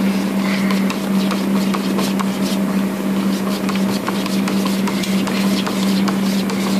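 A steady low hum with many light taps and scratches scattered through it, as a kitten's paws and claws strike a computer monitor's screen.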